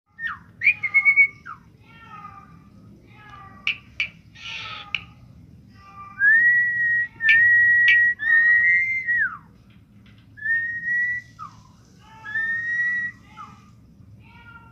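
A talking pet bird whistling: short chirps and clicks in the first few seconds, then a run of long, steady whistled notes, the longest about three seconds, several ending in a quick downward slide.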